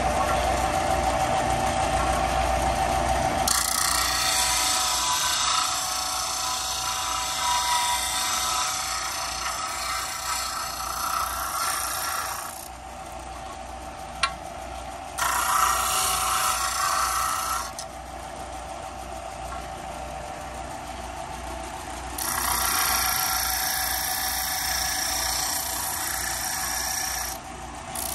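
Benchtop disc sander running with a steady motor hum while a wooden lure blank is pressed against the spinning sanding disc. There are three long stretches of gritty sanding hiss, separated by pauses where only the motor is heard, and a single click about 14 seconds in.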